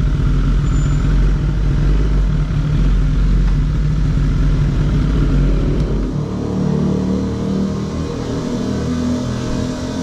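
A vehicle engine running steadily with a deep hum. About six seconds in the deepest part drops away and a lighter, uneven running sound carries on.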